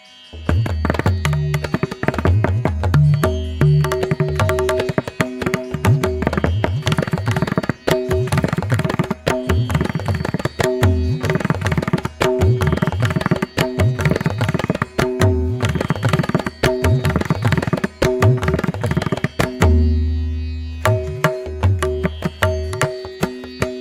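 Background instrumental music: fast tabla drumming over steady held tones, coming in suddenly right at the start.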